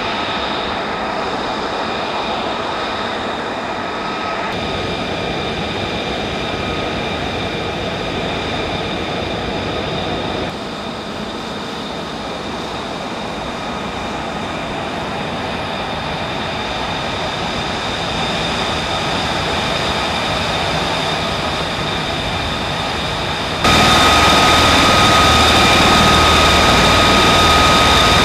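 F-35B Lightning II's single jet engine (Pratt & Whitney F135) running on the ground while the jet is refuelled: a steady rushing with a high whine at several pitches, which gets louder with a sudden step near the end.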